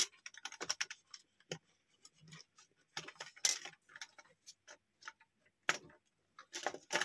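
Irregular light clicks and taps of a computer motherboard being handled as its processor is taken out, with a few louder knocks about three and a half seconds in and near the end.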